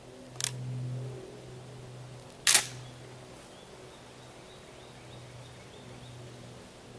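Shotgun firing a single buckshot load: one sharp report about two and a half seconds in, with a fainter click about half a second in.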